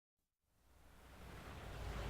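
Silence for about half a second, then a steady hiss fading in and getting louder.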